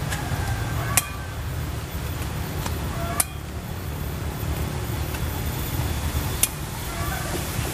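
Plant stems snapped off by hand while picking greens: three sharp snaps, about a second in, after about three seconds and near the end, over a steady low rumble.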